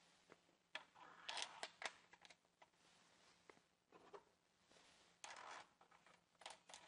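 Faint metal clicks and short scrapes of a turning tool being slid onto the crankshaft tensioning pin and its flange nut run on by hand, with two brief rustling patches, about a second in and again past five seconds.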